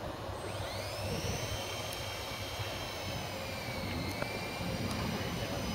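Blade mCX2 micro RC helicopter's electric motors and coaxial rotors whining; the pitch rises sharply about half a second in as the motors spool up, holds steady, then dips briefly about four seconds in and climbs again.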